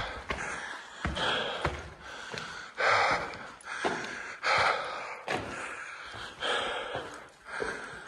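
A man breathing hard into the microphone, a heavy breath about once a second: winded after a climb.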